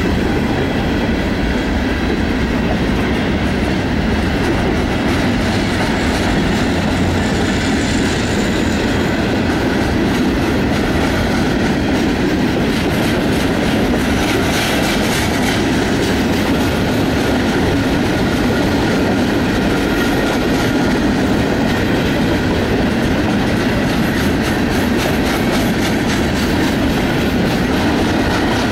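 Freight train of open-top gondola cars rolling past: a steady rumble of steel wheels on rail with a rapid clickety-clack of wheels over the rail joints, and faint thin squealing tones above it.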